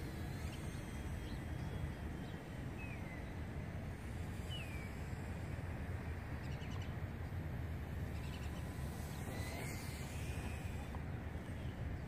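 Faint, distant whine of a micro FPV quadcopter's tiny brushless motors, gliding up and down in pitch a few times with throttle, over a steady low outdoor rumble.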